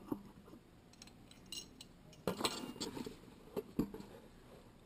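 Small metal clinks and knocks of antique Yale Mono Lock parts being handled: the doorknob and spindle hardware tapping together in several separate short strikes, the loudest a little over two seconds in.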